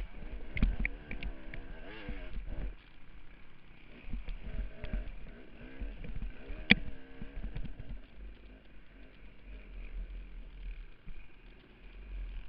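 Onboard sound of a KTM dirt bike engine revving up and down as it is ridden over a rough woodland trail, with knocks from the bumps and a low wind rumble on the camera. A sharp knock a little past halfway is the loudest moment.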